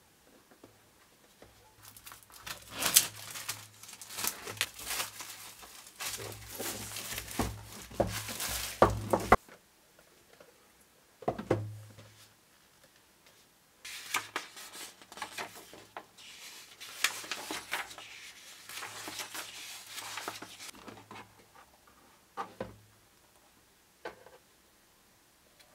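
Product packaging being opened and handled: plastic wrap crinkling and tearing in two spells of several seconds each, with a few knocks between and after them.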